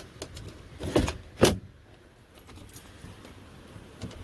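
Camper window being pushed shut: a rattling clunk about a second in and a sharper knock half a second later, with a few light clicks around them.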